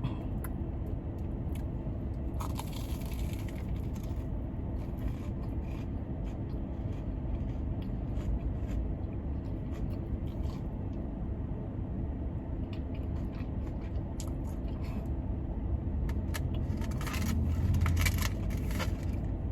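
Close-up eating sounds: chewing, crunching and light scraping of food and packaging, with a cluster about three seconds in and a louder one near the end. Under them a car's air conditioning runs as a steady low hum.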